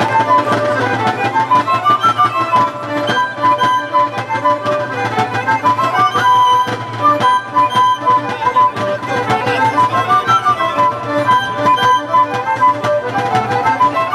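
Live traditional folk dance music led by a violin playing a quick, running tune, with sharp percussive strokes keeping a fast, even beat.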